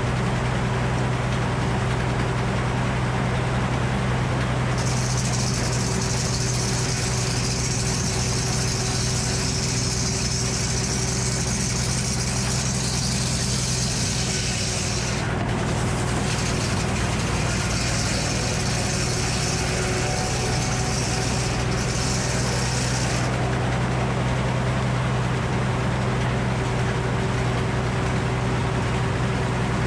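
Frick circular sawmill running, its power engine humming steadily. From about five seconds in until about three-quarters of the way through, the blade cuts through a white oak log with a high hiss, broken briefly about halfway.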